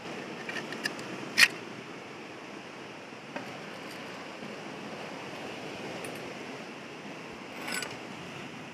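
A few sharp clicks and scrapes of a knife blade and hard shells against rock as gooseneck barnacles are pried off, the loudest about one and a half seconds in and a short rattle near the end, over a steady hiss of surf.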